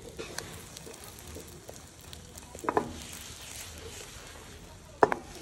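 Egg-wrapped sandwich sizzling faintly in a nonstick frying pan, with two sharp ringing metal clanks, one about midway and a louder one near the end, as the metal turner and the pan knock together.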